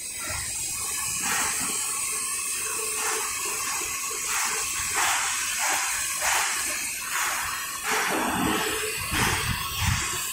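Steady hissing from a CNC stainless steel sink seam welding machine, swelling in repeated surges about once a second. Low knocks come in near the end.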